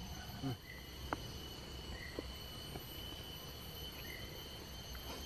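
Steady insect chorus, several high, even tones held without a break, with a few faint clicks.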